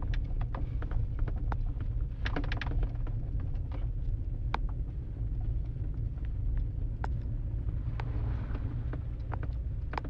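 Steady low rumble of a vehicle running, with scattered sharp ticks over it.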